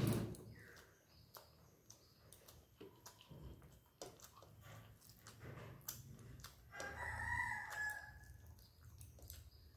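A rooster crows once, a drawn-out call of a little over a second about seven seconds in. Around it, soft clicks and smacks of eating rice and fish by hand, with a short loud smack right at the start.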